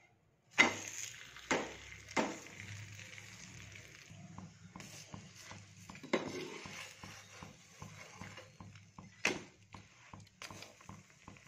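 Paratha frying in ghee on a non-stick tawa, with faint sizzling. A steel spatula clinks and scrapes against the pan a few times, loudest about half a second in and again about nine seconds in.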